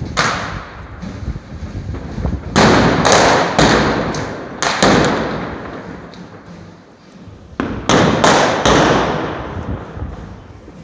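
Firecrackers exploding in a street, sharp loud bangs each followed by a long echoing tail. One comes right at the start, then a cluster of four about two and a half to five seconds in, and another cluster of four about seven and a half to nine seconds in.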